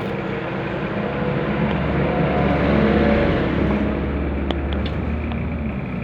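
A motor vehicle's engine passing close by, growing louder to a peak about halfway through and then fading.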